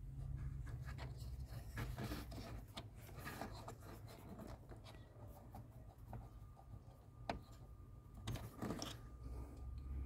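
Handling noise in a car's footwell: rubbing and scraping against plastic trim, with scattered clicks and a louder cluster of them near the end, over a steady low rumble.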